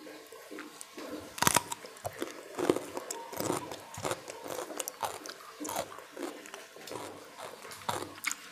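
A person chewing and biting crunchy food close to the microphone: a run of short crunches and mouth sounds, the loudest bites about a second and a half and two and a half seconds in.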